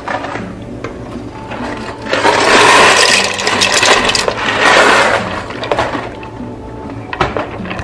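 Dry large elbow macaroni pouring from a cardboard box and rattling into a steel pot of boiling chicken stock, for about four seconds, with light background music underneath.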